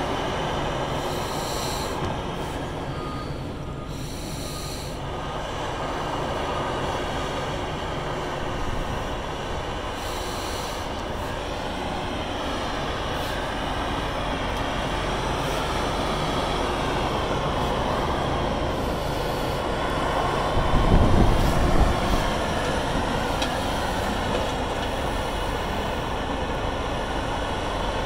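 Heavy site machinery running steadily: a Portafill MR-6 tracked screening plant working alongside a Screenpod S45 dust cannon's fan, with a wheel loader's engine joining in. A louder, deeper rumbling swells about three quarters of the way through.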